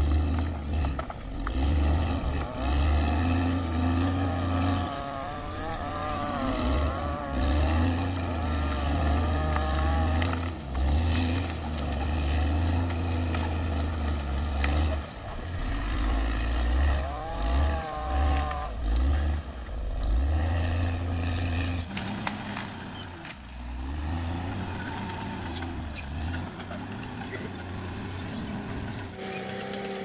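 CAT D6R XL bulldozer's diesel engine working, its pitch rising and falling in waves as it works the ground. Near the end the engine settles to a steadier tone.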